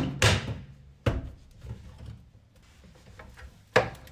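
Knocks and clunks of something being handled, like a door or panel: a clatter at the start, a knock about a second in, then a quiet stretch and one sharp knock near the end.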